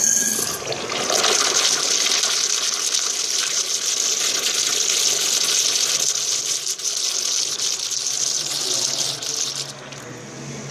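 Kohler Dexter urinal flushing from its flushometer valve: a sudden burst as the valve opens, then a steady hissing rush of water through the bowl for about nine seconds, easing off near the end.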